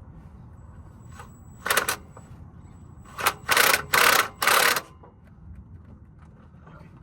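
Cordless impact wrench hammering in short rattling bursts: one about two seconds in, then four close together, after which it stops as its battery runs flat.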